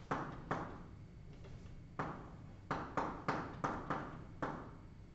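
Chalk tapping and scraping on a blackboard as words and an equation are written, about ten sharp irregular taps, each with a short scratchy tail.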